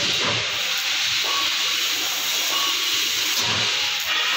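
Laser cutting machine cutting sheet metal: a loud, steady hiss of assist gas jetting from the cutting head's nozzle.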